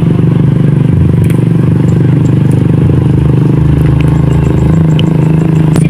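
Engine running steadily at a constant pitch, loud throughout. A few faint clicks are heard as young leaves are picked from a shrub.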